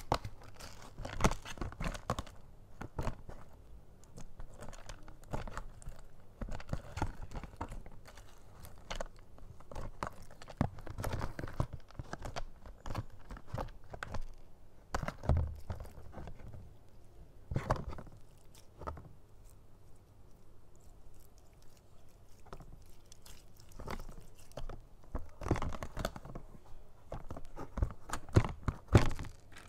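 Clear slime packed with small foam beads being stirred and kneaded by hand in a plastic tub: irregular sticky crackling and crunching, with a quieter, sparser stretch a little past the middle and livelier squishing near the end.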